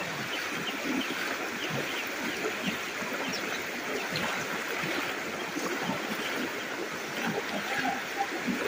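Shallow floodwater sloshing and splashing steadily, with many small splashes from people wading through it.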